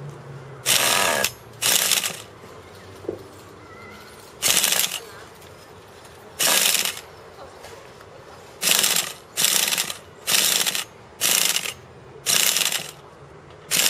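Pull-starter of a nitro RC car's glow engine being yanked about ten times, each pull a short whirring rasp of the cord and the engine turning over. The engine does not catch between pulls.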